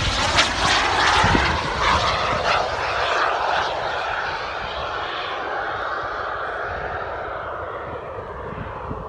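A fixed-wing aircraft passing and flying away: a rushing sound whose pitch slides slowly down as it fades.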